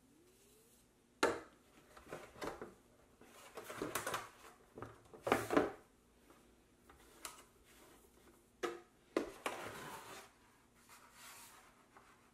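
PVC elbow pipe fittings handled and set against a plastic cooler lid: a few sharp knocks, about a second in and again near nine seconds, between short scraping and rubbing sounds.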